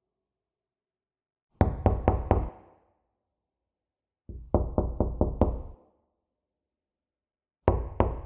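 Knocking on a door: three bursts of four or five quick raps, separated by silent gaps of about two seconds, the last burst starting near the end.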